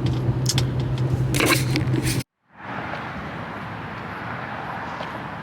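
Car cabin noise while driving: a steady low hum of engine and road with a few clicks and rustles, which cuts off abruptly a little over two seconds in. After a brief silence, a steady, even hiss of background noise follows.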